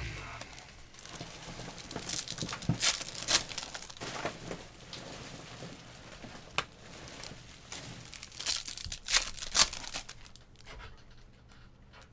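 Wrappers of 2017 Topps Chrome card packs being torn open and crinkled, in irregular rustles and rips that die down near the end.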